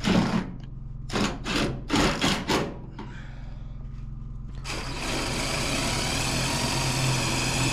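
A power drill driving a screw to fasten framing lumber, running steadily for about three seconds in the second half. Before it come several short sharp sounds.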